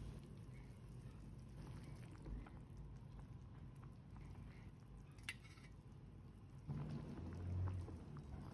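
Broth dripping and splashing back into the pot as poached chicken is lifted out on a slotted stainless-steel spatula, with a sharp metal clink about five seconds in and a dull handling bump near the end.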